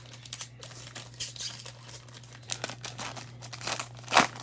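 The plastic wrapper of a Panini Prizm Draft Picks trading card pack crinkling and tearing as it is ripped open by hand, with irregular crackles and a sharp, loud crackle near the end. A steady low hum runs underneath.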